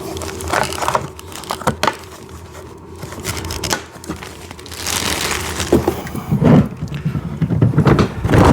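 Plastic hubcaps being fitted onto the rear wheels of a kids' ride-on car: scattered clicks and knocks of plastic being handled and pressed on, with heavier thumps in the last couple of seconds as they are pushed home.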